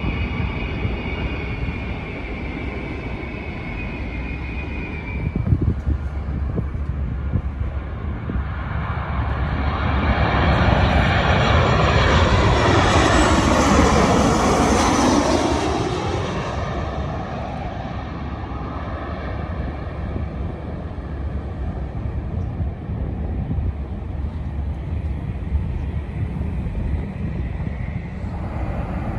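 Jet airliner on landing approach passing overhead: its engine noise swells to a peak about halfway through with a sweeping, phasing sound, then fades away. A high engine whine fades out about three seconds in.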